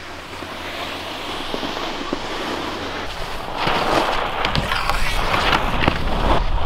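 Skis scraping and hissing over packed snow, much louder and rougher from about halfway as a skier carves and skids, throwing up spray. Wind rumbles on the microphone.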